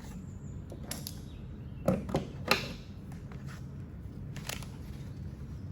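A few short knocks and scrapes of handling: a metal hand tool being slid into a belt tool pouch, with the loudest cluster about two seconds in and a last click near the end.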